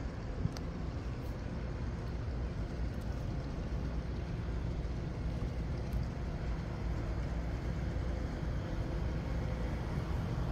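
Steady low mechanical rumble, even throughout, with no distinct events.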